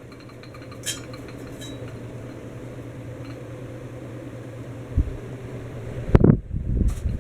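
Encon Casanova ceiling fan running, its motor giving a steady low hum. A light clink about a second in and a loud knock about six seconds in, followed by rustling.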